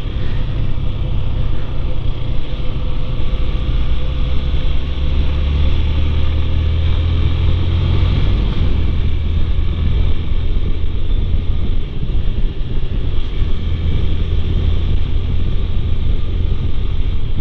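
Motorcycle riding noise picked up by a helmet-mounted lavalier mic wrapped in a foam windscreen, a surgical glove and a deadcat: a steady low rumble of wind and road, with the motorcycle's engine faintly under it.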